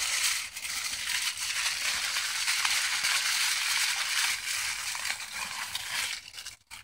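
Tin foil crinkling and scrunching without a break as it is folded in several layers around a salmon fillet, stopping near the end.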